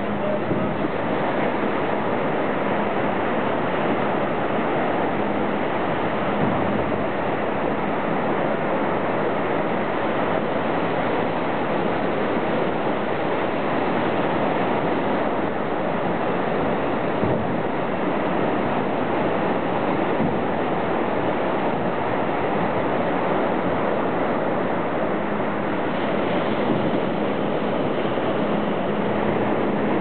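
Steady wash of ocean surf breaking along a beach, a continuous rushing noise without distinct crashes.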